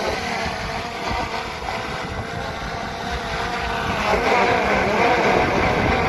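DJI Air 2S drone's propellers whining over low wind rumble on the microphone. About four seconds in the whine wavers and climbs in pitch as the motors work against gusts.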